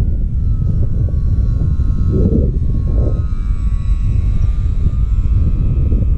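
Strong wind buffeting the microphone, with the thin whine of an RC motor glider's electric motor and propeller in flight over it, its pitch sagging slowly.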